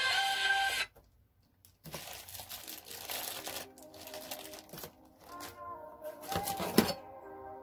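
Plastic packaging crinkling and rustling in irregular bursts as it is handled, starting about two seconds in and loudest in a flurry near the end. Background music plays in the first second, stops briefly, then returns faintly beneath.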